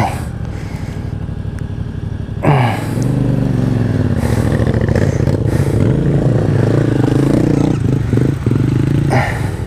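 Motorcycle engine running close by, its revs rising about two and a half seconds in and then held as the bike rides off, with a few clicks and scrapes from gloved hands near the helmet-camera microphone.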